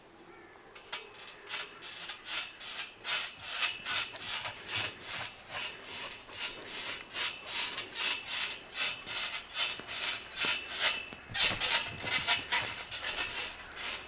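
Footsteps crunching through dry grass and leaves close to the microphone, about two steps a second, starting about a second in.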